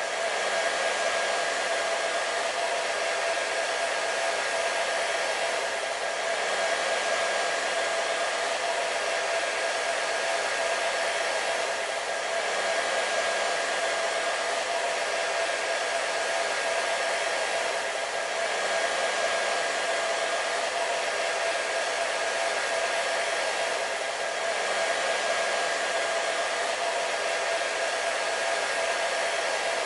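Hair dryer running steadily: a rush of blown air with a steady whine from its motor, dipping slightly in loudness about every six seconds.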